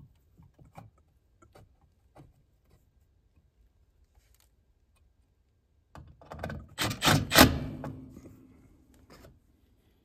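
Hands fitting a replacement air handler circuit breaker into its mounting: a few light clicks, then a burst of loud clattering knocks about six seconds in that dies away with a brief ringing.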